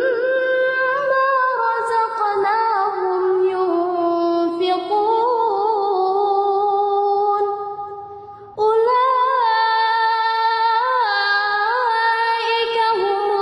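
A high voice singing in long, held melodic lines with ornamented turns and wavering pitch. It fades out about eight seconds in, then comes back suddenly half a second later.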